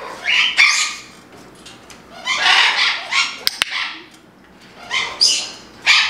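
Double yellow-headed Amazon parrot giving several harsh, hissy calls. A training clicker clicks twice sharply about halfway through.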